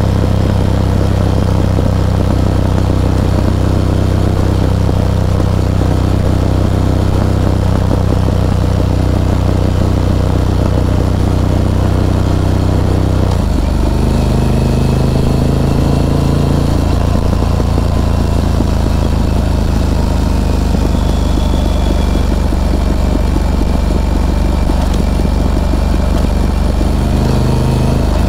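Harley-Davidson Pan America's Revolution Max 1250 V-twin running steadily under way, its note shifting in pitch about halfway through.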